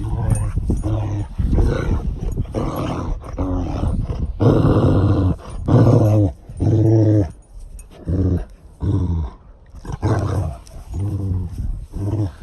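Dogs growling in rough play: a run of short, throaty growls about two a second, with a longer, louder growl about four and a half seconds in.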